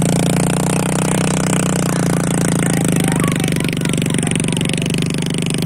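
A small engine running steadily at a constant speed, with an even, unchanging pitch.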